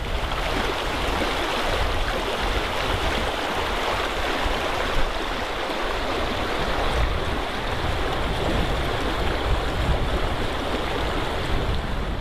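Mountain stream rushing steadily over rocks, a constant dense rushing noise with a low rumble underneath.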